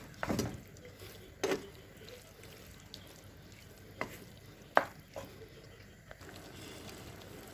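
Spoon stirring and knocking against a cooking pot a few separate times, over a faint sizzle of chicken and potatoes frying as their water cooks off.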